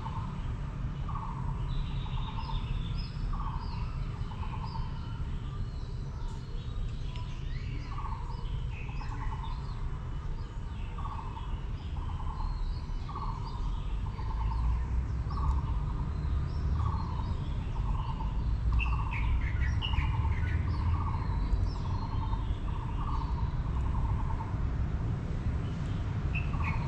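Birdsong: one bird repeats a short low note about once a second, pausing briefly partway through, while other birds give scattered higher chirps. A steady low rumble runs underneath.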